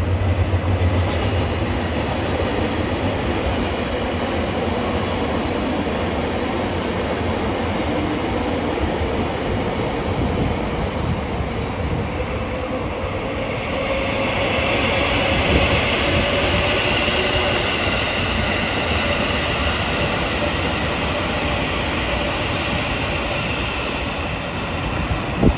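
Electric trains running past on elevated track, led by a JR Kyushu 883 series Sonic limited express, with a steady rumble of wheels on rail. From about halfway a high steady whine joins in.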